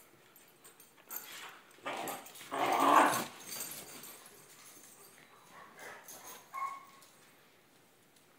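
Dogs in rough play, vocalising in short noisy bursts about two to three seconds in, the loudest near three seconds, then a brief high yip near the end.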